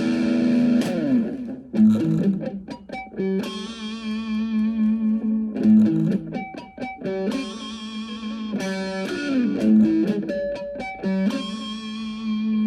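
Instrumental music: a guitar plays a slow melody of plucked and sustained notes with vibrato over a steady held low note.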